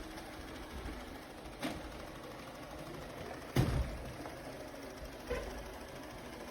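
Robot vacuum running with a steady motor whir, bumping into something three times; the middle knock is the loudest.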